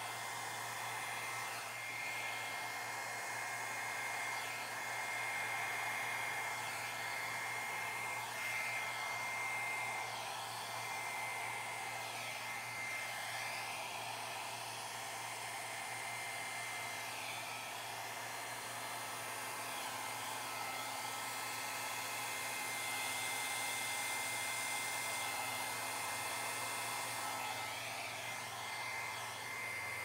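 Handheld hair dryer running steadily, blowing wet acrylic pour paint across the canvas in a Dutch pour; a rush of air with a steady high whine.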